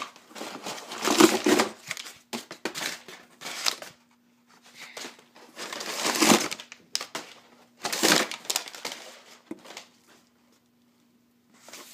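Crumpled cardboard packing being pulled about and crinkled by hand inside a cardboard shipping box, in irregular rustling bursts every second or two that die down near the end.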